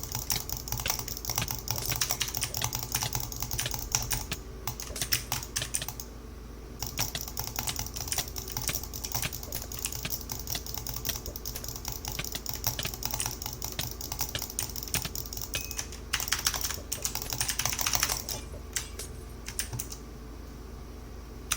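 Computer keyboard being typed on: fast, irregular runs of key clicks, pausing briefly about six seconds in and again near the end, over a steady low hum.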